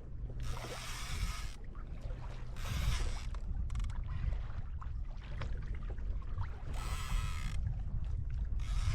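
Water splashing and sloshing around a kayak in five short hissing bursts, each about a second or less, over a steady low wind rumble on the microphone.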